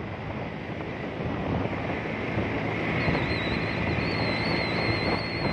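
Honda motorcycle engine running steadily on the move, with wind buffeting the microphone. A thin, high, wavering whine joins about three seconds in.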